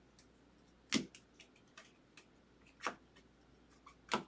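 Trading cards being handled: three sharp clicks or snaps, a second or two apart, with fainter ticks between them.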